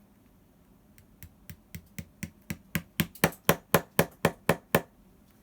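A shoemaker's lasting hammer tapping steadily, about four strikes a second and growing louder, as the leather upper is hammered down over the last during lasting; the tapping stops shortly before the end.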